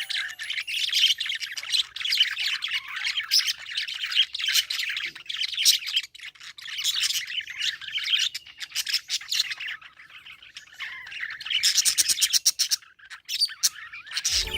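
Budgerigar chirping and chattering in a rapid, continuous stream of high chirps and squawks, with a brief lull about two-thirds of the way through before the chatter picks up again.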